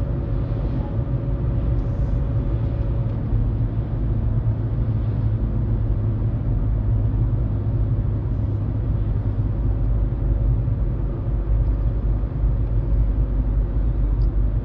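Steady low rumble of a minivan cruising on an open road, engine and tyre noise heard from inside the cabin, with a faint steady whine.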